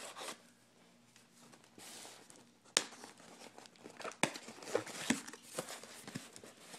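Packing tape on a cardboard shipping box being cut with a knife and worked at by hand: scratchy crinkling and tearing of tape and cardboard, with a few sharp clicks, the strongest about three and four seconds in.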